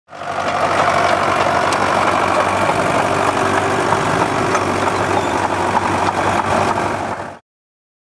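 Fordson Major County Crawler tractor's engine running steadily while pulling a two-furrow trailed plough; the sound cuts off abruptly about seven seconds in.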